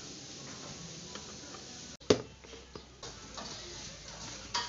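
Metal loaf pan knocking down onto a plastic tray as it is turned upside down to unmould a set pudding: one sharp knock about two seconds in, then a few lighter taps.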